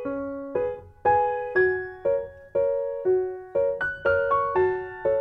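Background music: a gentle piano piece, notes and chords struck about twice a second, each fading before the next.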